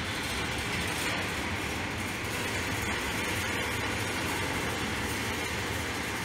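Balls rolling along the wire tracks of a large marble run, a steady rolling noise.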